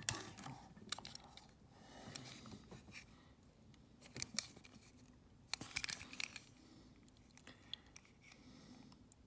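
Faint clicks, taps and light scrapes of a small die-cast metal toy truck being handled and turned over in the fingers, with a few sharper taps about four seconds in and a quick cluster of them around six seconds.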